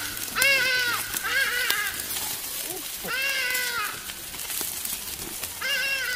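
A goat bleating several times in short calls that rise and fall in pitch, over the crackle and sizzle of a wood fire grilling sausages.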